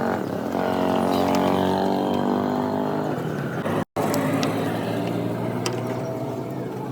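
Car engine running steadily, a pitched drone with many overtones, cut off briefly about four seconds in and then carrying on a little quieter.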